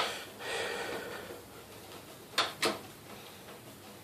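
Hands handling a desktop computer case and its newly fitted power supply: a knock at the start, a brief scraping rustle, then two sharp clicks close together a little past halfway.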